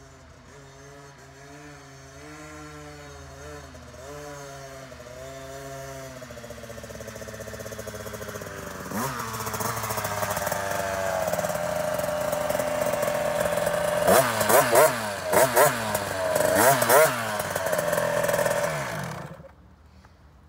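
A 2018 KTM 50SX two-stroke mini dirt bike is ridden closer, its engine note rising and falling with the throttle and getting louder as it approaches. Several quick throttle blips follow as it pulls up, then the engine cuts off suddenly near the end.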